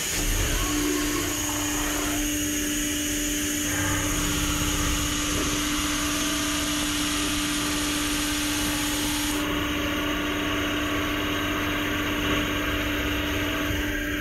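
Kennametal DFSP indexable drill cutting 6AL-4V titanium in a CNC machining centre, spindle turning at 970 rpm under flood coolant: a steady machine hum with a constant tone that comes in about half a second in, over the hiss of the coolant spray.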